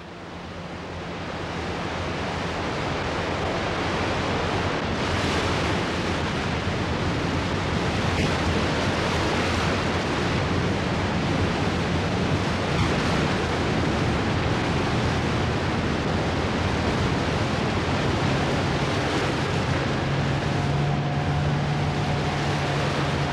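Thunderous roar of the Nile's waterfall, forced through a rock gorge only a few metres wide, with spray and white water churning below. It swells up over the first couple of seconds and then runs as a steady, dense rush. A faint low hum joins in during the last few seconds.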